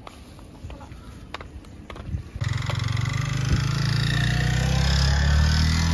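A motorbike engine running, starting abruptly about two and a half seconds in and rising gently in pitch. Before it there is only faint background with a few light clicks.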